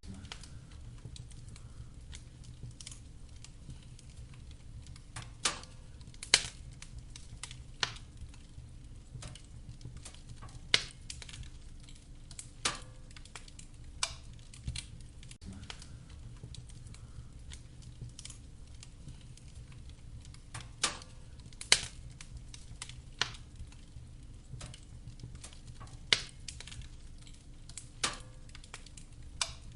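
Wood fire in a fireplace crackling, with irregular sharp pops of the burning logs, a dozen or so louder than the rest, over a steady low rumble.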